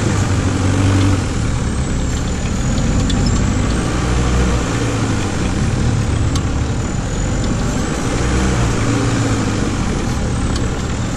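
VW Beetle buggy's engine running steadily as the buggy drives over a sandy dirt track, with a few light knocks.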